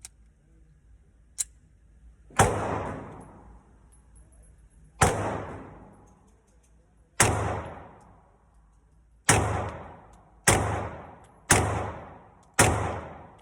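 Seven shots from a compact pistol at the range, fired singly at an uneven pace, the last four about a second apart. Each shot rings out and dies away over about a second. A single sharp click comes before the first shot.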